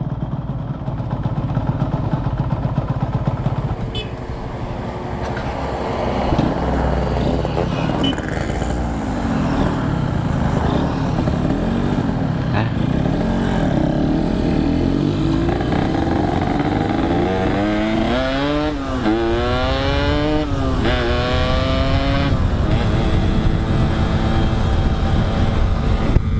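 Motorcycle engine running, with the revs rising and falling several times, most plainly in the second half.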